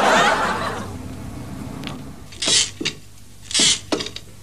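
Audience laughter dying away in the first second, then two brief scraping or rustling sounds over a faint steady hum.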